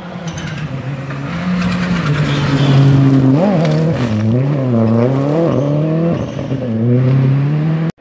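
Rally car driven hard on a gravel stage, its engine running at high revs. About halfway through, the engine pitch rises and dips several times.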